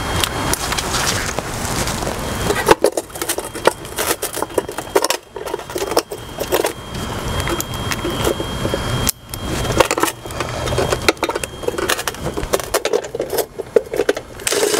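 Cordless drill running in several bursts of a few seconds, with metal clicks and scraping between them while parts are fastened to a metal electrical timer box.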